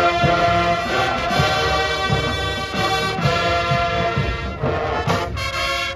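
Marching band brass playing held chords over regular drum-line strikes, with a new, brighter chord coming in about five seconds in.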